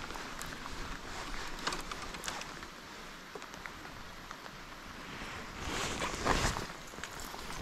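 Steady rain falling on the water surface, with a few light clicks. About six seconds in comes a louder burst of splashing as a hooked bass thrashes at the surface beside the line.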